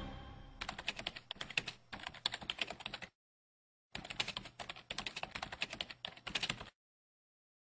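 Computer keyboard typing: rapid key clicks in two runs of about two and a half seconds each, with a pause of under a second between them. It serves as the sound of the on-screen text being typed out letter by letter.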